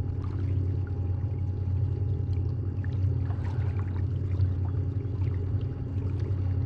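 Water running and trickling along a moving kayak's hull over a steady low rumble, with a faint steady whine.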